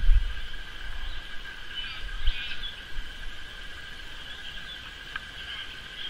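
Outdoor bush ambience: a steady, high-pitched chorus of small creatures hums throughout. A short burst of scratchy bird calls comes about two seconds in, from galahs. A low rumble sits at the very start.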